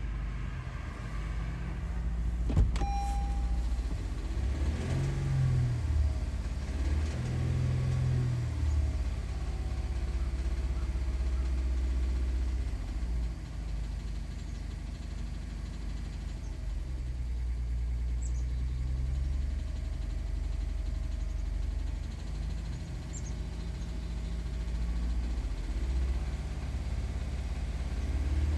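2021 Honda Pilot's 3.5-litre V6 engine running, its pitch rising and falling with engine speed, with one sharp click about two and a half seconds in. The owner hears a knocking in this engine that Honda declared normal engine operation.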